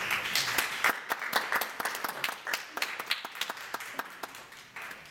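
Audience applauding: dense clapping that thins out and fades away over the few seconds.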